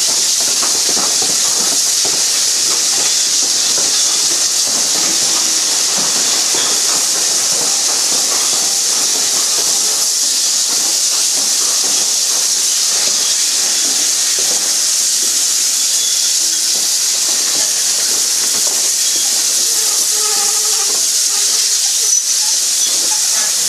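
Steam hissing loudly and steadily from the steam train while it rolls slowly along the platform.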